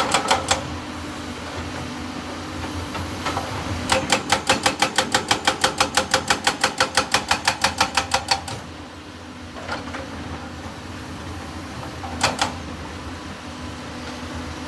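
Excavator engine running steadily, with a run of rapid metallic clacking at about four to five strikes a second lasting some four seconds, and shorter clusters of clacks at the start and near the end.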